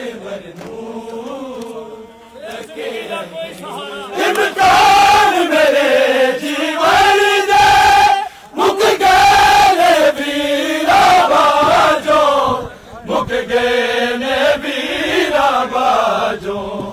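Men chanting a Shia mourning lament (nauha) in long melodic phrases that rise and fall, with repeated sharp slaps of chest-beating (matam). The singing is softer at first and grows loud about four seconds in, with short breaks between phrases.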